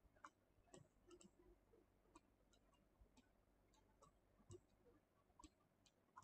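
Near silence broken by a dozen or more faint, irregular computer mouse clicks.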